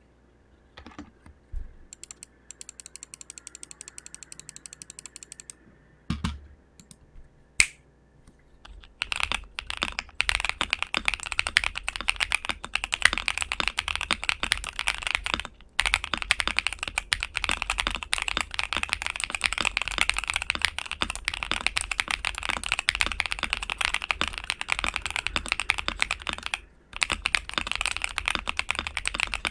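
Modded ASUS ROG Azoth mechanical keyboard with LEOBOG Graywood v4 switches in a PC plate, typed on fast and continuously from about nine seconds in, with two brief pauses. Before that comes a quick run of even ticks, about seven a second, and a few single clicks.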